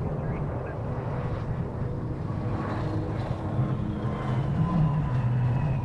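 Embraer 545 business jet's turbofan engines whining as it touches down and rolls out, with a high whine slowly falling in pitch in the second half. The sound is buried under heavy wind noise on the microphone.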